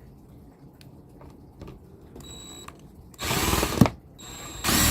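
Bauer 20-volt cordless impact driver driving a Torx screw into the pull-start housing: a brief soft whir, then two loud runs of the driver, the first about three seconds in and lasting over half a second, the second near the end.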